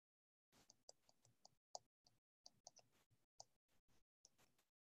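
Near silence with faint, irregular light clicks of a stylus tapping on a tablet screen during handwriting.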